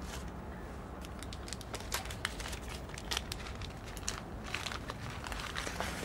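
Faint, irregular clicking and crackling over a low steady hum.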